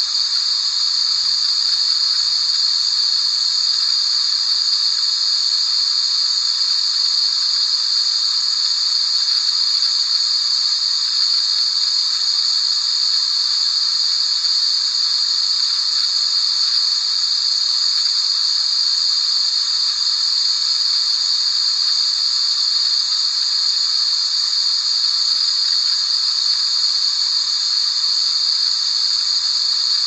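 Steady, unchanging white noise: a constant high-pitched hiss with no low rumble, played as a continuous sleep sound for a baby.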